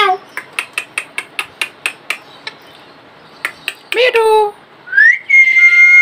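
A caged green Psittacula parakeet calling: a short call at the start, a run of quick clicks for about two seconds, another short call about four seconds in, then one long, steady two-toned whistle near the end.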